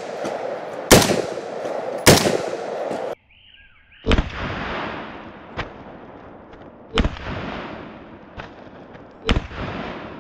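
Shots from a PSA H&R retro M16A1 rifle firing 55-grain 5.56 mm rounds one at a time, each sharp crack followed by a fading echo. Two come about a second apart, then after a pause three more follow two to three seconds apart.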